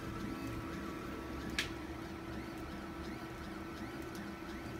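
Stepper motors of a home-built 3D printer whining as the print head moves, the pitch sliding up and down with each move, over a steady fan hum; one sharp click about a second and a half in.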